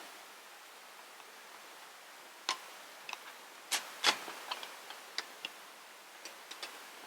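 Wood campfire crackling: irregular sharp pops and snaps, about ten in a few seconds, over a faint steady hiss.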